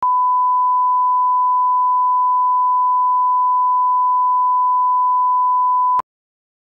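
Steady pure test tone, the line-up tone that plays with colour bars, held at one pitch and cutting off abruptly with a click about six seconds in.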